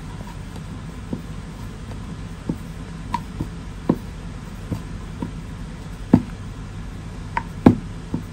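Wooden rolling pin and round wooden rolling board (chakla) knocking and clicking as puri dough is rolled out and turned: irregular short knocks, the loudest about six and seven and a half seconds in, over a steady low hum.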